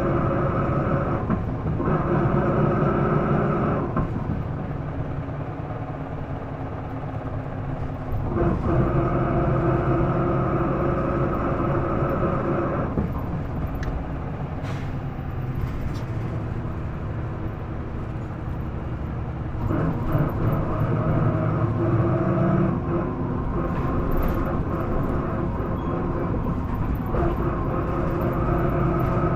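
Isuzu Erga PDG-LV234 city bus's diesel engine and driveline heard from inside the cabin, pulling under load with a steady whining tone that is this bus's known abnormal noise, of unknown cause. The whine eases off twice, then comes back.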